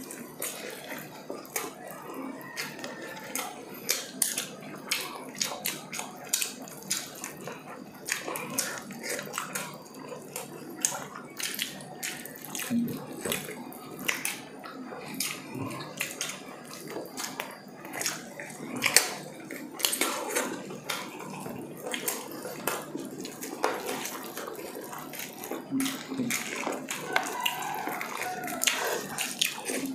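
Close-up eating sounds of two people eating saucy braised pork ribs by hand: wet chewing and lip smacks, with fingers pulling meat off the bones. Many short, irregular smacks and clicks.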